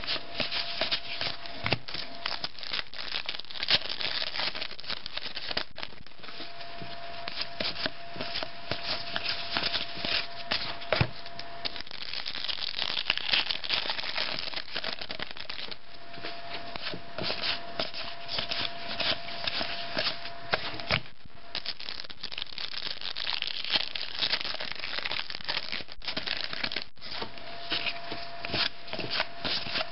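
Trading card packs being handled: wrappers crinkling and tearing open, and cards sliding and flicking against each other as they are thumbed through, in a rapid, uneven stream of small rustles and snaps. A faint steady hum comes and goes in the background.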